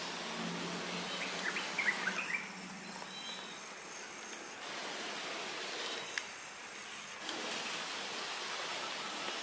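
Steady high-pitched insect drone in a coconut plantation, with a few faint short chirps about two seconds in.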